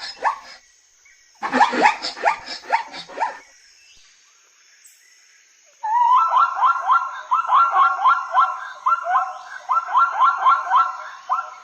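Zebra calling with rapid barking yelps. A short burst comes a little over a second in, and a longer run of fast, repeated rising yips starts about halfway through.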